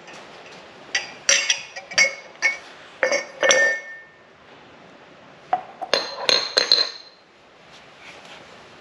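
Ceramic dishes and glassware clinking and knocking together as they are handled and set down, in two bursts of sharp clinks, the first about a second in and the second past the middle, a few ringing briefly.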